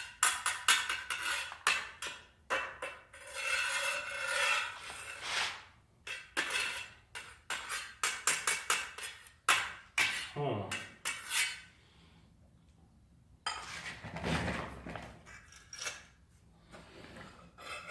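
Stick welding rod on car-battery power scratched along rusty angle iron to strike an arc, crackling and scraping in irregular stops and starts. It breaks off about 12 seconds in and comes back briefly near 14 seconds. The rust keeps the arc from holding steady.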